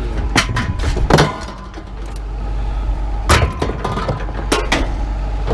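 Scrap metal being handled and dropped, a few sharp clanks and knocks over a steady low rumble.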